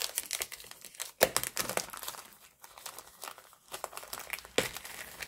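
Clear plastic cellophane sleeve crinkling and crackling in irregular bursts as it is pulled open and a stack of cards is slid out of it, with a couple of sharper crackles about a second in and near the end.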